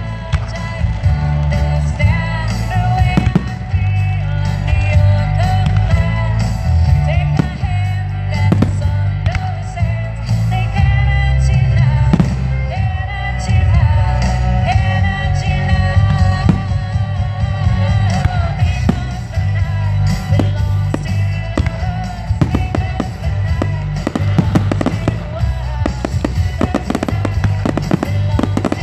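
Music with singing and a heavy bass beat, with aerial firework shells bursting and crackling over it; the bangs come thicker near the end.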